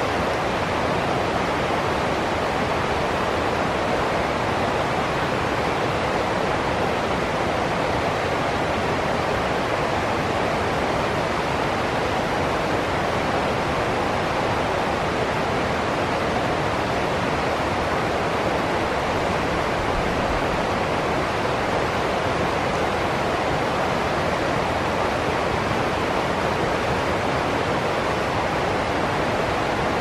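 Rocky stream rushing over small cascades: a steady, even rush of white water.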